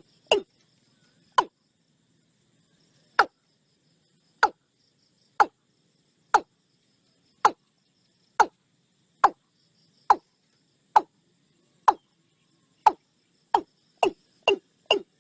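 A series of sharp knocks or taps, a few spread out at first, then about one a second, quickening to about two a second near the end, over a faint steady high tone.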